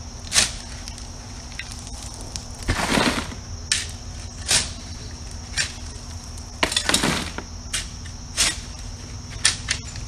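Steel shovel working loose gravel: sharp clinks and crunches of stones, with two longer gritty scrapes about 3 and 7 seconds in as the blade digs into the pile.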